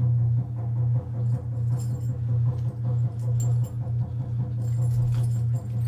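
A steady low drone with a light, irregular jingling and rustling on top, as a performer dances in a deer-skin costume with a stag's head.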